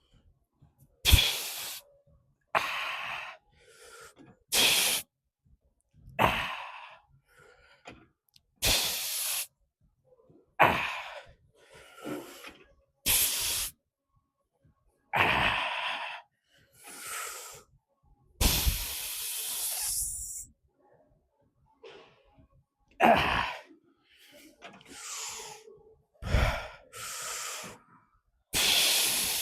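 A man breathing hard through a heavy weightlifting set: sharp forceful exhales and gasps, one every second or two, with short pauses between.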